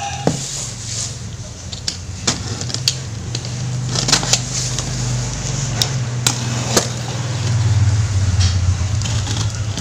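A low steady motor-like hum that grows louder for a couple of seconds near the end, with about ten sharp clicks and taps scattered through it.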